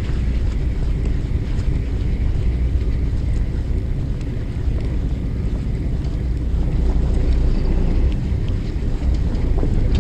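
Wind buffeting the microphone on an open fishing boat at sea: a steady low rumble that never lets up, with a few faint ticks above it.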